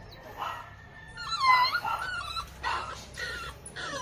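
American Bully puppies whining and whimpering: a string of high, wavering cries, loudest about a second and a half in.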